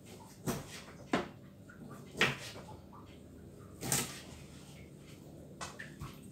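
Knife knocking on a cutting board as raw chicken is chopped into pieces: about six separate, irregular knocks, the loudest a little after two seconds and near four seconds.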